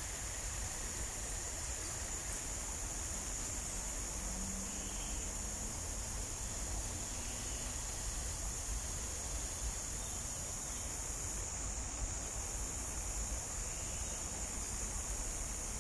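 Rainforest ambience: a steady high-pitched insect chorus drone over a low rumble.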